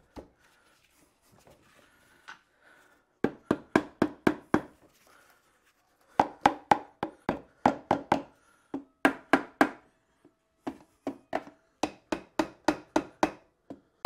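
Hammer tapping on the aluminium gearbox housing of a BMW K100 to break the gearbox loose from the engine. The light, quick taps come in several runs of about five a second, with short pauses between them.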